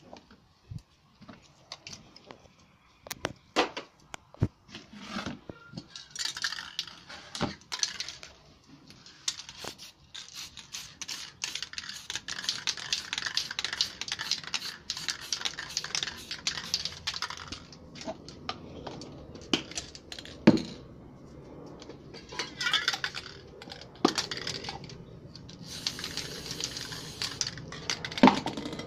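Aerosol spray-paint cans being handled: spells of dense rattling lasting a few seconds, typical of a can being shaken with its mixing ball inside, between separate knocks and clinks as cans are picked up and put down.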